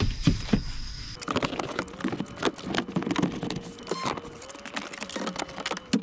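Rapid, dense clattering, knocking and rustling of cushions, bed boards and a window fan panel being handled while a camper-van sofa bed and ventilation fan are set up, sped up. It starts with a few knocks and grows busier about a second in.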